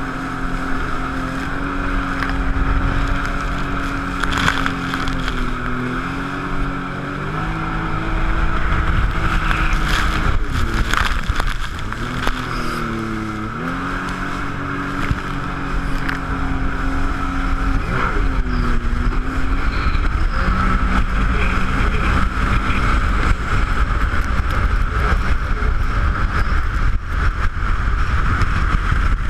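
Jet ski engine running hard, its revs dipping and picking back up about three times before holding steady.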